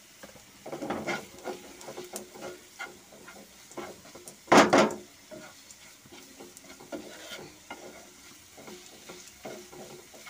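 Wooden spatula stirring and scraping a thick onion-tomato masala around a nonstick frying pan, the masala sizzling, in irregular strokes. One stroke about four and a half seconds in is much louder than the rest.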